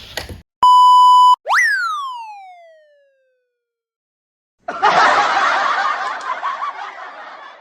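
Electronic sound effects: a short loud buzzy beep, then a tone that jumps up and glides steadily down in pitch over about a second and a half. After a pause of over a second, a dense rushing, chattering sound starts suddenly and fades away over about three seconds.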